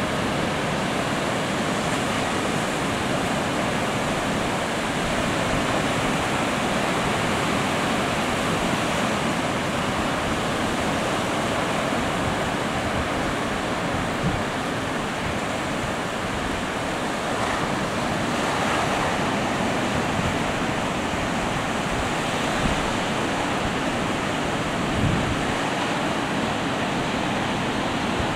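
Sea surf breaking and washing up a sandy beach: a steady, unbroken wash of waves.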